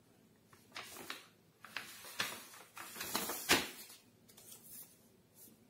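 Paper rustling and flapping as a page of a children's picture book is turned, in a handful of short, sharp bursts, the sharpest about three and a half seconds in.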